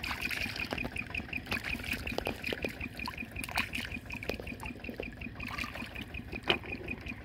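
Shallow muddy water splashing and dripping as hands dig in the mud, with short splashes scattered through. Behind it runs a steady high-pitched chirping of about six pulses a second.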